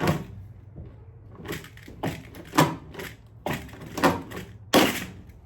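Rivet gun setting rivets into a body panel: about six sharp snaps spread over a few seconds, with handling clicks between them.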